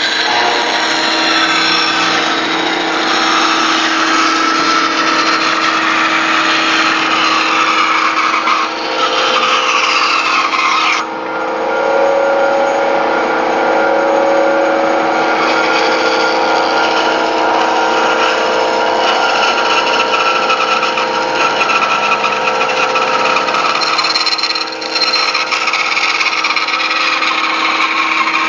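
Woodworking band saw running with a steady hum while its blade cuts a curved line through a thick block of wood. The cutting noise varies as the piece is fed, drops away abruptly about eleven seconds in, and then picks up again.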